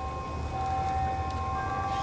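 Town mill bells ringing for noon: several sustained tones at different pitches, with new notes coming in about half a second and again a second and a half in, over a low rumble.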